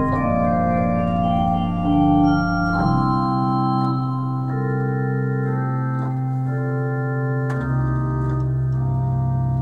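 Sauer/Rieger pipe organ, using stops from the 1877 Sauer instrument, playing slow sustained chords that change every second or so. A deep bass note is held underneath from about three seconds in, and a still lower note joins near the end.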